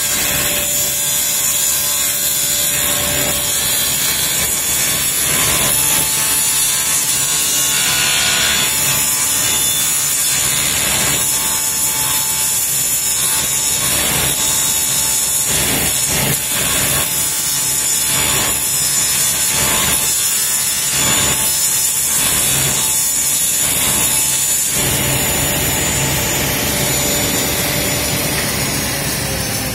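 Sliding panel saw running while a plywood disc is turned by hand against the blade, the blade shaving the edge round in a rhythmic series of bites about once a second. About 25 seconds in the cutting stops and the saw's pitch falls as it winds down.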